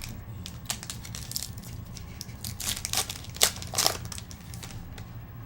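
Wrapper of a trading-card pack crinkling and tearing as it is opened: irregular sharp crackles, loudest a little past the middle.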